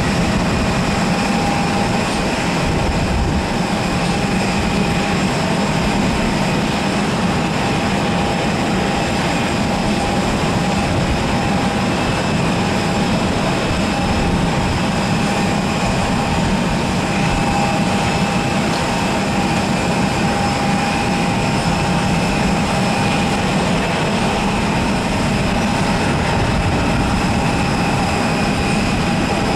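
Airbus A320 jet airliner landing: a steady rumble of its jet engines with a constant high whine running through it, staying at one level through the touchdown and rollout.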